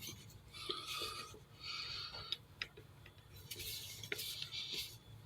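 Screwdriver turning a small screw in three short scraping strokes, with light clicks between; the screw is not going in.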